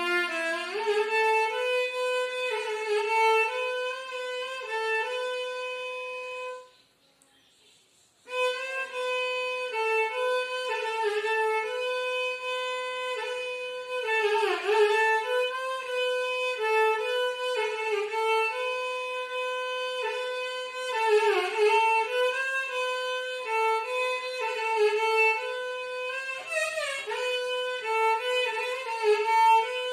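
Solo violin played in Carnatic style, a bowed melody of held notes joined by sliding, ornamented turns in pitch. About seven seconds in it stops for a second and a half, then carries on.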